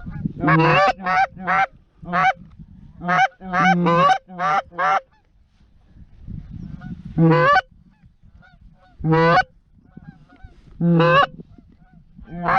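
Snow goose honking: a quick run of about ten short, high honks in the first five seconds, then single honks every couple of seconds.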